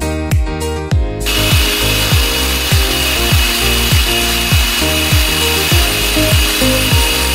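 Small electric food processor running, its blade grinding peanuts with honey and oil into peanut butter: a steady high motor whine that starts about a second in. Background music with a steady beat plays underneath.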